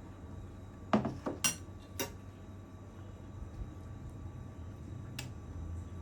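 Dishware clinking: four sharp clinks in quick succession about a second in, the first the loudest, and one more near the end, over a low steady hum.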